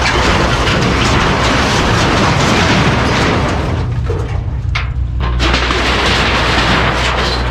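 Mini excavator dumping a bucketload of demolition debris into a dumpster: a long crash and clatter lasting about four seconds, then the excavator's diesel engine running steadily.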